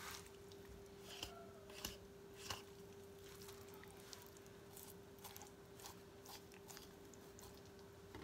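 Faint clicks and short scraping sounds of a kitchen knife slicing raw chicken breast meat away from the breastbone on a plastic cutting board, over a steady faint hum. A sharp knock at the very end.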